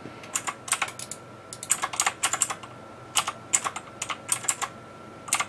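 Computer keyboard being typed in short irregular runs of clicks, with brief pauses between runs.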